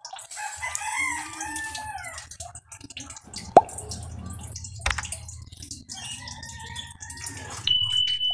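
A rooster crowing twice, with a low hum underneath and two sharp clicks between the crows. A steady high beep starts near the end.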